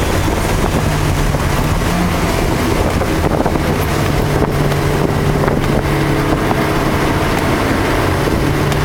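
A car's engine pulling steadily at speed, heard from inside the cabin, over the constant rush of wind and tyre spray on a wet track.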